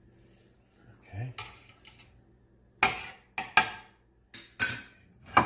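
Metal kitchen tongs clinking and scraping against a glass baking dish and a plate while lifting marinated pork ribs out, a string of sharp clinks roughly a second apart, loudest in the second half.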